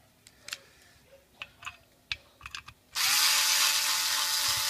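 Light clicks and taps of tools being handled, then about three seconds in a small cordless electric screwdriver starts running with a steady motor whine, loosening a screw on a hard drive's head actuator assembly.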